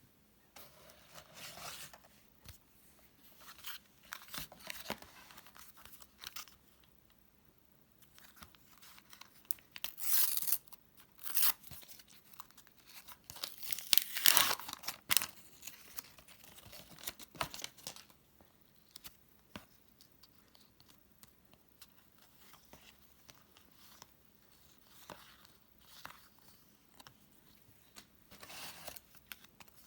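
Panini Premier League 2023 sticker packets being torn open and their wrappers and stickers handled: irregular tearing and crinkling, loudest in two bursts about a third and halfway through.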